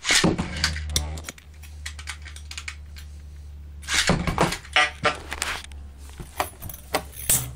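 Two metal Beyblade tops, Diablo Nemesis X:D and Kries Cygnus 145WD, launched with a loud rip and spinning in a stadium bowl with a low steady hum. From about four seconds in they collide repeatedly in quick metallic clicks and clacks.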